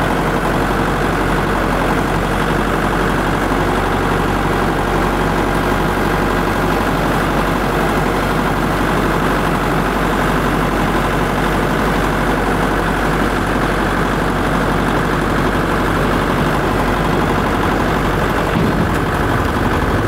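An engine running steadily and loudly, with an even noise over it and no change in speed.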